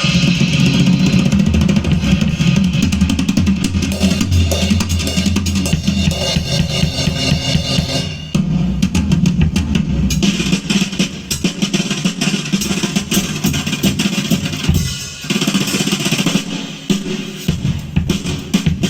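Recorded music with a drum kit, bass drum and snare prominent, played back through a homemade amplifier. It is loud and continuous, with brief dips about eight seconds in and again about fifteen seconds in.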